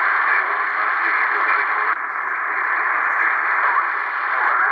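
Received audio from a Cherokee CBS-1000 CB base station: a steady band of static hiss with faint, unclear voices in it, dropping slightly in level about two seconds in.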